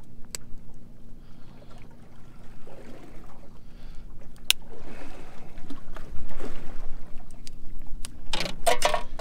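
Sounds aboard a fishing boat: a steady low motor hum over wind and water noise, with a few sharp clicks and knocks and a louder burst of noise near the end.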